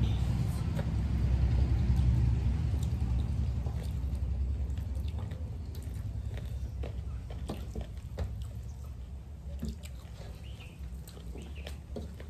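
Wet clicking and squelching of rice and curry mixed by hand on metal plates and chewed, with many small sharp clicks. A low rumble is strongest over the first few seconds and then fades.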